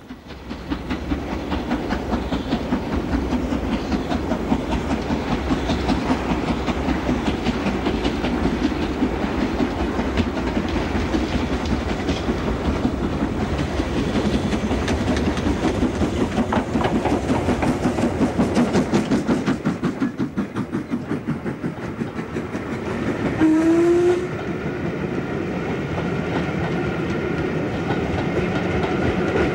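LMS Princess Royal class Pacific steam locomotive Princess Elizabeth working a train away, its exhaust beating in a fast, even rhythm. About two-thirds through comes a brief rising tone, the loudest moment, and then the coaches run past.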